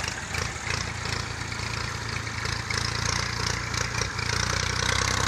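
Tractor engine running steadily under load while towing a stuck tractor out of the mud; its low hum sets in about half a second in.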